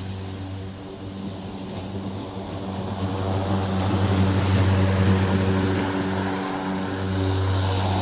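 Lawn mower engine running steadily, its hum growing louder a few seconds in.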